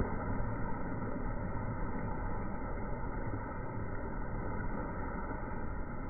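Steady low background rumble with no distinct sounds standing out.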